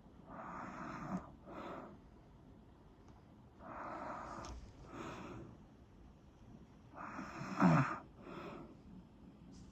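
Snoring: three slow breath cycles about three seconds apart, each a longer rasping breath followed by a shorter one. The third is the loudest, with a brief low rattle.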